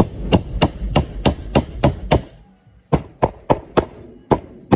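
Mallet blows on a CYC X1 Pro Gen 2 mid-drive motor's stator, knocking it down into the gearbox housing to seat it. There is a steady run of sharp knocks, about three a second, a short pause a little before halfway, then several more.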